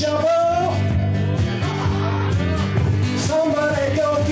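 Live blues guitar music: a lead melody that bends in pitch over a steady low bass line, with a regular percussive beat.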